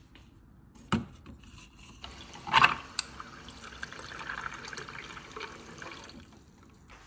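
Water from a countertop water dispenser pouring in a steady stream into a mug of coffee over ice cubes, from about two seconds in until shortly before the end. A single knock comes about a second in.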